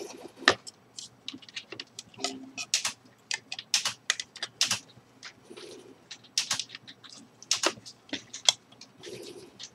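Irregular, sharp clicks and taps of small parts and hand tools being handled during workbench assembly.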